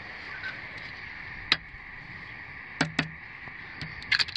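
Sharp taps on a bleached animal skull, a hand knocking on the dry bone. There is a single tap, then two close together, then a quick run of taps near the end.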